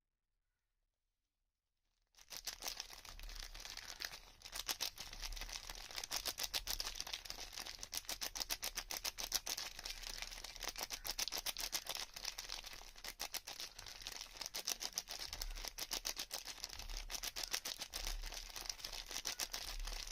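After a brief silence, a dense, rapid scratchy crackle starts about two seconds in and runs on without a break: soap packaging and soap being handled and unwrapped close to the microphone.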